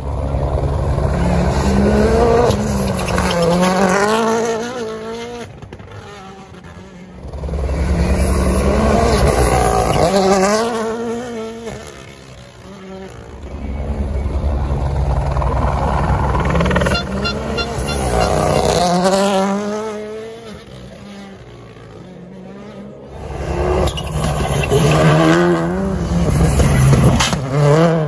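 Rally cars passing one after another at full speed, four passes in all. Each is a turbocharged four-cylinder engine revving hard, its pitch climbing and dropping sharply through gear changes as the car comes through the bend and away.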